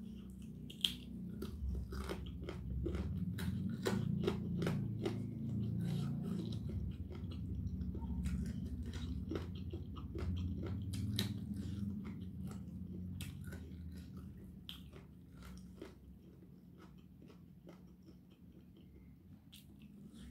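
Close-miked ASMR eating: a person biting and chewing chicken and fried tofu, with many short crunches and wet mouth clicks. The chewing is busiest over roughly the first twelve seconds and grows quieter after that.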